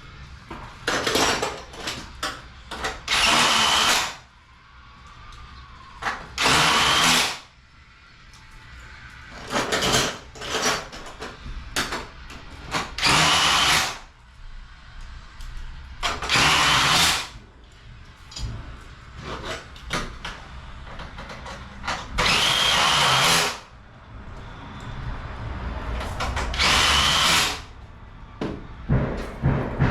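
A power drill/driver running in short runs, about eight of them, each lasting a second or so, while driving fasteners during garage door hardware installation. On several runs the pitch rises slightly near the end.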